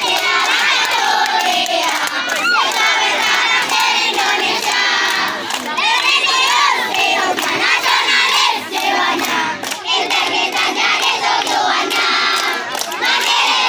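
A large crowd of schoolchildren chanting and shouting together at full voice while clapping their hands.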